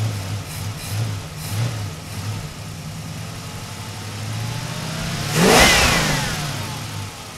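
Intro sound effect of an engine revving in short pulses, then running steadily, with a loud whoosh about five and a half seconds in that falls in pitch as it fades.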